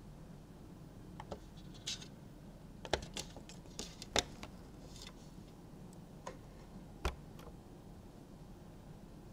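A scatter of light, irregular clicks and taps, about a dozen, bunched together near the middle, from a Maine Coon kitten moving about right at the camera over a wooden floor.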